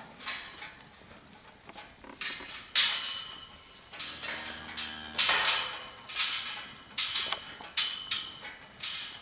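A series of sharp metallic clanks and rattles at uneven intervals, several ringing briefly. A faint low animal call sounds about four seconds in.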